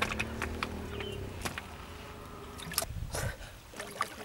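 Water splashing and slapping in a boat's fish well as live fish thrash, with scattered sharp clicks and knocks over a low steady rumble.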